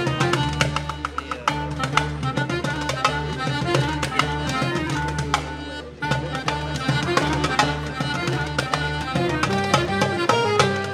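Instrumental music: a melody played over a busy hand-drum rhythm, with a low held bass note underneath that drops out near the end.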